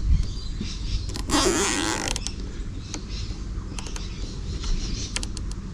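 A plastic cable tie being pulled tight through its lock: one ratcheting zip lasting under a second, about a second and a half in, followed by a few light clicks of handling.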